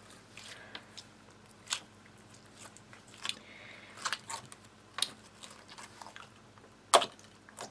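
Slime with small coloured bits mixed in, being squeezed and kneaded by hand: irregular sharp clicks and crackling pops, the loudest near the end.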